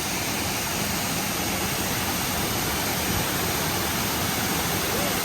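Waterfall in heavy flow: a steady, even rush of falling water.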